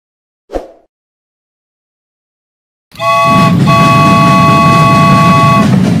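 Dubbed train sound effect, starting about three seconds in after a short swish near the start: a rolling rumble, with a multi-note train horn sounding one short blast and then a longer one.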